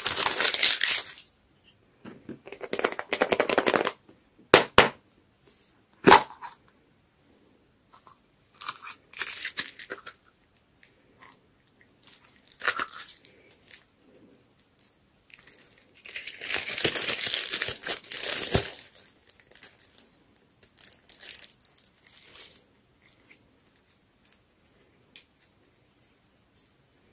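Plastic candy wrapping crinkling and tearing in several bursts as toy lollipops are unwrapped by hand, with two sharp plastic clicks about five and six seconds in and light handling ticks near the end.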